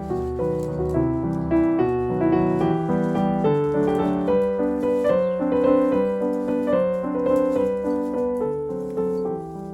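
Background music led by piano, a melody of notes in steady succession over a sustained low bass.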